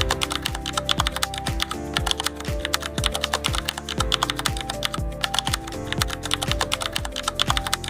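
Keyboard-typing sound effect, a rapid run of clicks, laid over background music with a steady deep beat about twice a second.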